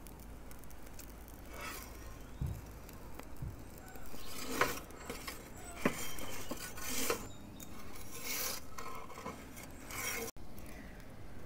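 Perforated metal pizza-turning peel scraping over the oven's baking stone in a series of short rasping strokes as the pizza is slid and turned.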